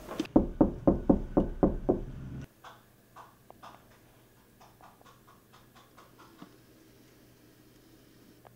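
Rapid, loud knocking on a door, about ten knocks in two seconds, then quiet with a few faint clicks.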